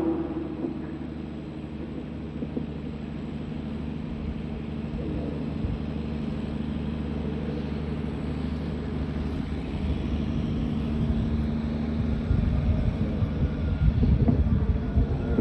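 Steady low hum and rumbling room noise, with the echo of the voice dying away at the start; the noise grows a little louder over the last few seconds.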